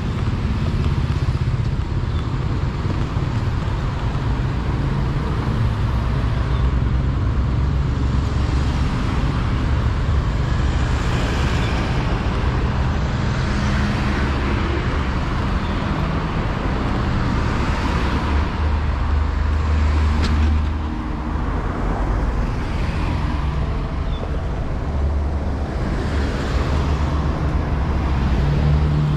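Road traffic: motor vehicles passing one after another over a continuous low rumble, swelling and fading every few seconds as each goes by.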